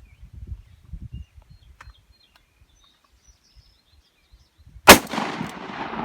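A single gunshot about five seconds in, loud and sharp, followed by a long echo that trails off slowly.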